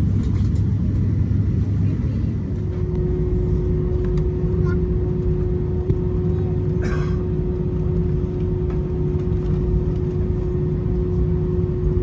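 Cabin noise of a British Airways Airbus A320: a steady rumble of engines and airflow. A steady hum joins it about two seconds in and holds.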